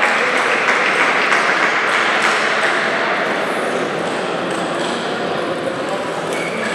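Table tennis balls clicking at irregular intervals over a loud, steady hall din.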